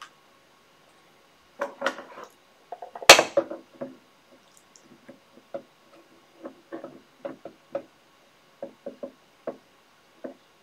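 Small objects handled on a tabletop: a few knocks, the loudest and sharpest about three seconds in, then a scattered run of light taps and clicks.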